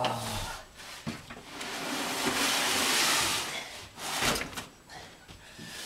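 Gear being shoved into the packed back of a truck: a long scraping rustle for about two seconds, then two sharp knocks, with a few lighter clicks around them.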